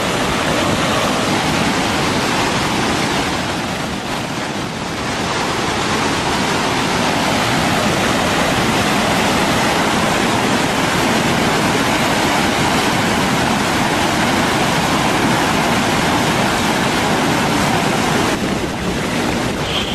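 Muddy flash flood torrent rushing past, a loud, steady rush of churning water that dips slightly about four seconds in.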